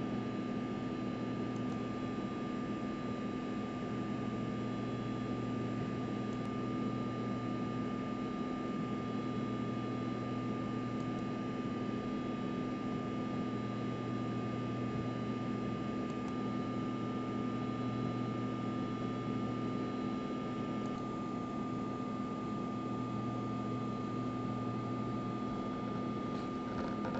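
Steady hum and hiss with a few constant tones, like a fan or motor running, unchanging throughout.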